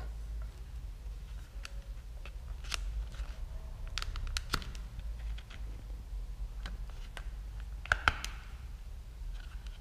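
Scattered small plastic clicks and knocks from a motorcycle's handlebar switch housing and its wiring plug being handled and pressed together, with two sharper clicks in quick succession near the end.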